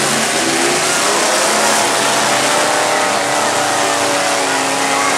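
Demolition derby cars' engines running hard and revving over a loud, steady din, one engine note climbing gradually through the middle.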